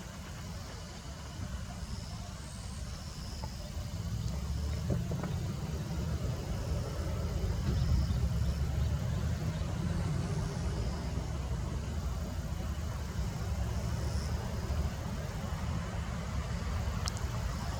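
Steady low rumble of road traffic on a busy arterial road, growing louder about four seconds in.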